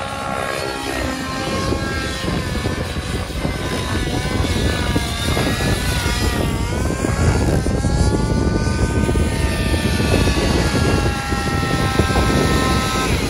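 Gaui NX7 nitro RC helicopter flying 3D manoeuvres, its glow engine and rotor blades making a continuous whine. The pitch dips and climbs back about halfway through as the helicopter flips and loads its rotor.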